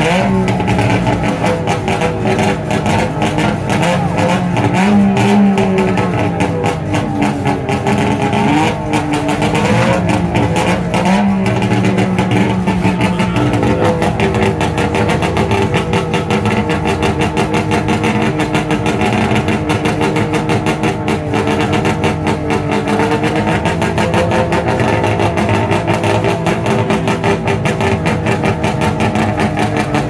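Saab 93's three-cylinder two-stroke engine running at a standstill, its throttle blipped a few times in the first half, then settling to a steadier idle.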